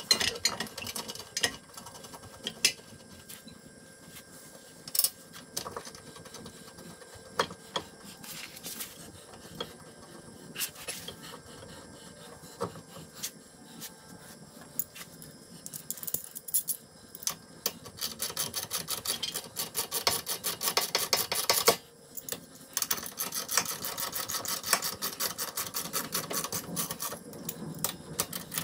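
Hand tools at work on a car's front wheel hub during a wheel-stud swap: scattered metal clinks and knocks, then, about halfway through, long runs of rapid, even clicking typical of a ratchet wrench being cranked, sped up, with a short break near the end.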